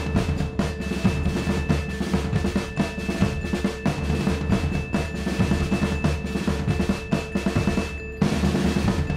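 Background music with dense drumming and drum rolls over sustained notes.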